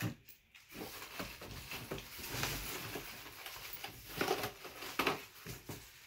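Small plastic parts bags and cardboard packaging rustling and crinkling as they are handled, with scattered short taps.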